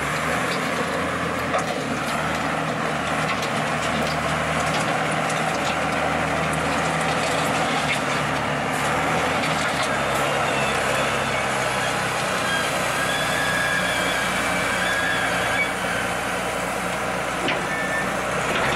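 Wheel loader's diesel engine running steadily close by while it pushes and scoops earth with its bucket.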